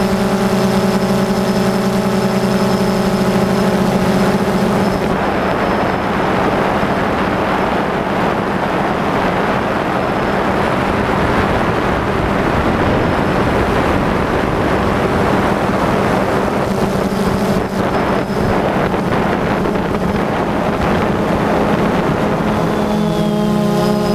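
DJI Phantom 2 quadcopter's electric motors and propellers giving a steady multi-tone whine, picked up by the GoPro on board. After about five seconds a loud, even rushing noise mostly covers the whine. Near the end the motor tones come back clearly, shifting in pitch as the rotor speeds change.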